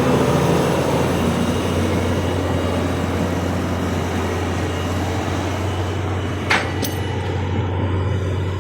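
Excavator's diesel engine running steadily under a dense mechanical noise, with one short sharp knock about six and a half seconds in.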